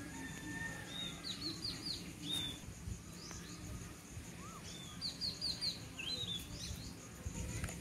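Birds calling: scattered chirps and, twice, a quick run of four or five high notes that each fall in pitch, over a faint steady insect trill.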